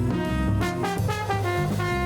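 Instrumental music: a tune of held melodic notes over a low bass line.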